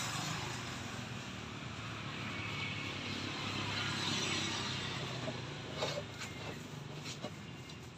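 A steady engine drone, as of a passing vehicle, that swells about halfway through and fades toward the end, with a few light knocks near the end.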